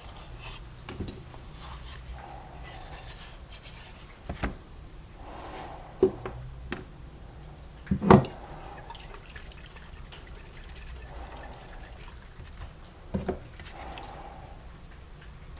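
Scattered knocks and clunks of wooden cutouts and a can being picked up and set down on a wooden workbench, about five in all, the loudest about eight seconds in.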